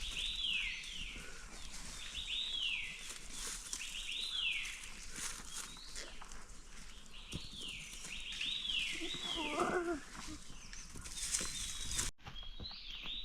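A bird repeats a short whistled call that slides downward, about once every second or two, over scattered scuffing footsteps and brush rustling on a steep forest slope.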